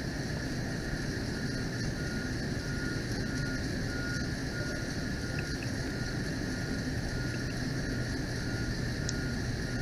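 Steady low mechanical hum with a faint high whine that comes and goes.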